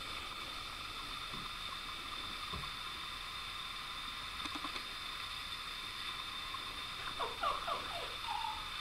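A small dog whimpering softly in a few short, sliding whines near the end, begging for her ball, which has been put out of reach. A steady faint hiss runs underneath.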